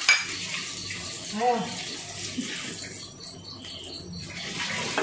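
Ghee and oil heating in a nonstick kadai on a gas burner, giving a steady faint sizzling hiss that eases off briefly in the middle. A sharp tap sounds right at the start.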